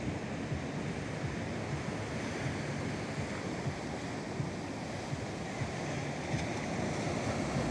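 Ocean surf breaking on the beach, a steady wash of waves. Wind rumbles on the microphone.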